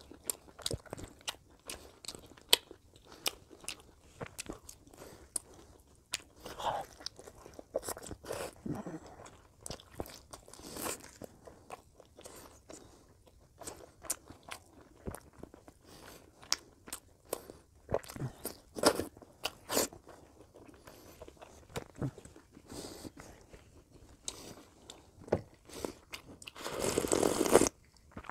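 Close-miked eating by hand: chewing, wet lip and mouth clicks and crunching as lamb curry, rice and fried vegetable chips are eaten. Near the end comes a louder, noisier stretch of about a second.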